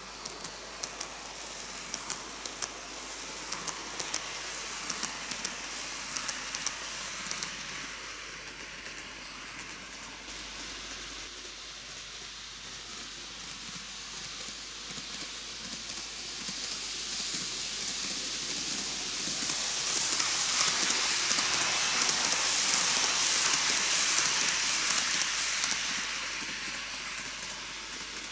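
TOMIX N-gauge Kintetsu 80000 series Hinotori model train running on its track: a steady hissing whir from the motor and wheels, with quick clicks from the rail joints while it passes close by at the start. It grows quieter, swells loudest again for several seconds, then drops away near the end.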